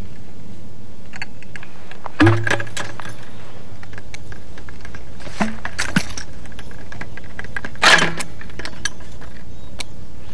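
Sharp clacks and rattles of an M72 rocket launcher being armed: its covers are opened and the telescoping tube is pulled out and locks, raising the sights. The loudest clacks come about two seconds in and again near eight seconds, with a few lighter clicks between.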